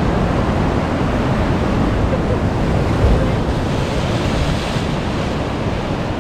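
Ocean surf breaking and washing against the rocks of a jetty, a steady loud rush, with a wave crashing into spray about four seconds in. Wind buffets the microphone underneath.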